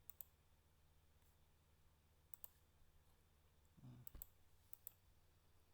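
Computer mouse clicking in quick pairs, four times, against near silence, with a brief faint murmur just before the third pair.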